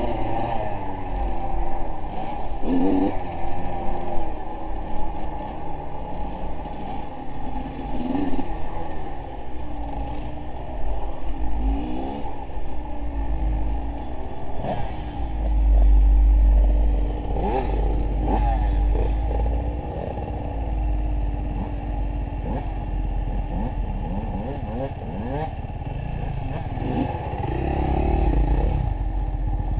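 A motor vehicle engine revving up and down over and over, its pitch swinging with the throttle, with clattering and knocks mixed in. It runs loudest about halfway through.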